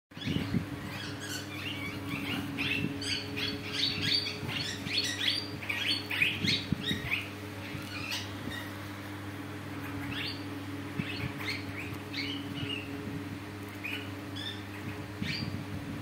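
Young parakeets chirping in quick, dense bursts for the first several seconds, then only now and then, with soft pecking sounds as they feed on fresh pea pods. A steady low hum runs underneath.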